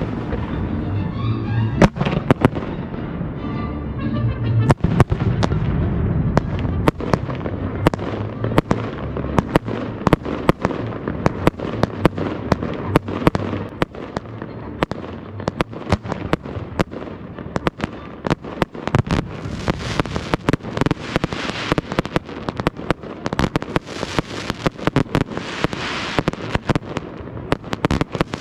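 Aerial fireworks display firing a rapid series of shell bursts, several sharp reports a second. From about two-thirds of the way through, a dense, high crackling hiss joins the bangs.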